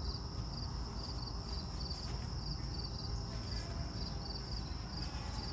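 Crickets chirping in an even rhythm, about two chirps a second, over a continuous high insect trill and a low outdoor rumble.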